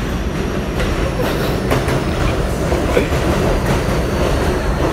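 New York City subway N train pulling into an elevated station and running along the platform. A steady rumble is broken by several short clacks of wheels over rail joints.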